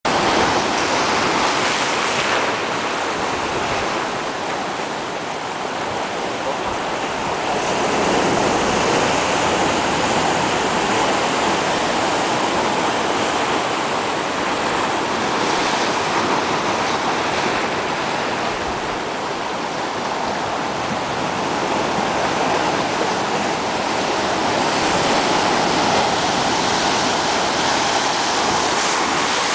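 Ocean surf breaking on a sandy beach: a continuous rush of waves and foam that swells and eases slowly as the sets come in.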